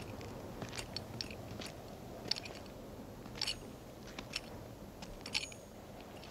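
Slow, uneven boot footsteps crunching on a dirt street, some steps with a light metallic clink, over a steady low background hiss.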